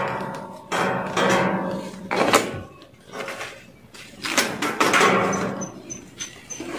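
Background music: a strummed acoustic guitar, chords struck about once or twice a second and left to ring.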